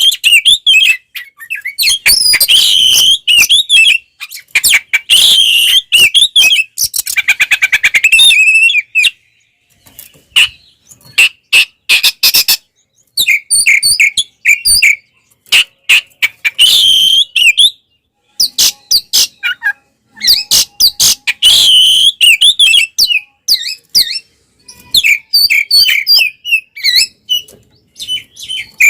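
Oriental magpie-robin (kacer) in loud, full aggressive song: varied whistled phrases, rapid chatter and a fast harsh rattle, broken by short pauses between bursts. This is the bird's combative 'fighting' song, the kind used to provoke other magpie-robins.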